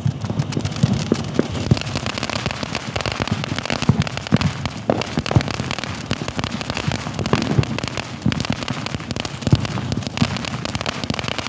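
Fireworks display going off in rapid, overlapping bangs and crackles, with no let-up.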